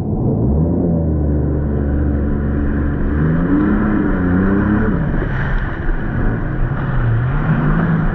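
Jet ski engine running under way, its pitch rising and falling several times as the throttle is worked. The rush of water and wind lies under it.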